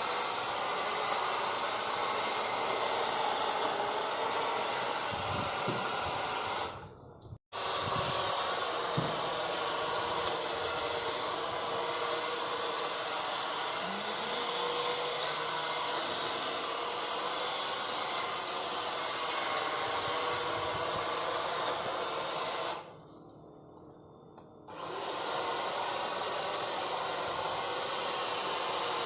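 Electric hedge trimmer running steadily with a high motor whir as it cuts plant growth, stopping briefly twice and starting again.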